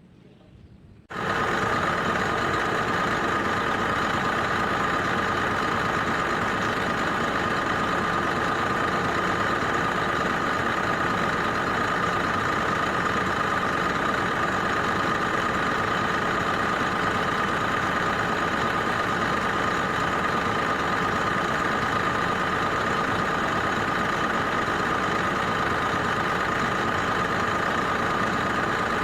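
Heavy equipment's diesel engine idling steadily, close up, with a strong whine over the running. It comes in suddenly about a second in and holds an even note.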